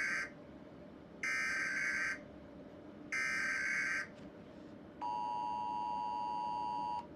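Emergency Alert System SAME header: the end of one harsh digital data burst, then two more bursts of about a second each, followed by the two-tone EAS attention signal (853 and 960 Hz) held for about two seconds.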